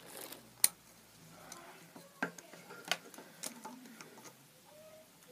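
Small handling clicks and taps as hands stretch and wrap rubber bands around a bundle of pencils: a handful of sharp ticks, the loudest about half a second in, over a faint rustle.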